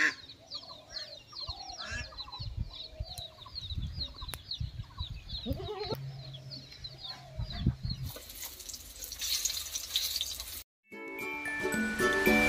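Small birds chirping in quick runs with hens clucking. About eight seconds in this gives way to a hiss, then a brief silence, and near the end a music intro with chiming tones begins.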